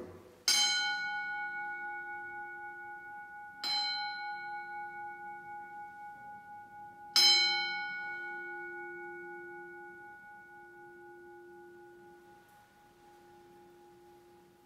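Altar bell struck three times, about three and a half seconds apart, each stroke ringing on and slowly fading away; the third stroke is the loudest. The ringing marks the elevation of the consecrated host at Mass.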